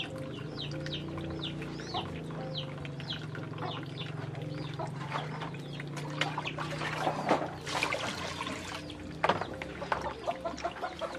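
Chickens clucking and peeping: a string of short, high, falling peeps, about two or three a second, over a steady low hum. A brief rush of noise comes about seven seconds in.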